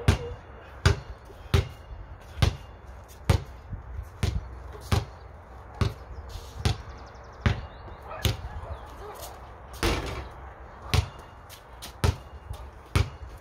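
Basketball being dribbled: a steady run of sharp bounces, a little more than one a second.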